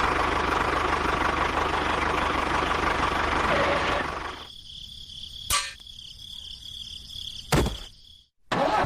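A motor running steadily with a low hum, cutting out about four seconds in. A faint steady high whine follows, with two sharp clicks, a moment of silence, and the running noise starting again near the end.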